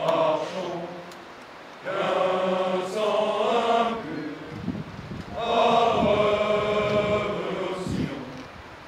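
A body of soldiers singing in unison in slow, drawn-out notes: a brief phrase at the start, then two longer held phrases about 2 s and about 5.5 s in.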